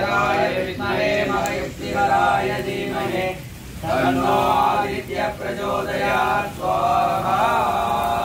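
Male voices chanting Sanskrit mantras in a continuous recitation, broken by short pauses for breath every second or two.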